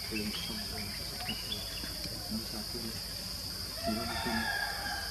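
A steady high-pitched insect drone with faint murmuring voices underneath. A brief higher-pitched call sounds about four seconds in.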